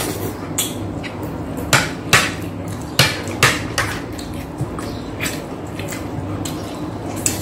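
Close-miked eating sounds: chewing of crispy-fried pork knuckle (crispy pata), with a run of sharp crunches and mouth smacks, most of them between about two and four seconds in, over a steady low hum.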